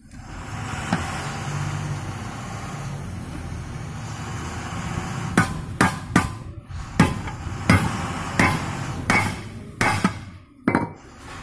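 Hammer striking a steel punch to set the rivets holding brake lining to a truck brake shoe: about ten sharp metallic blows, roughly one every 0.7 seconds, starting about halfway through. Before the blows there is a steady noise.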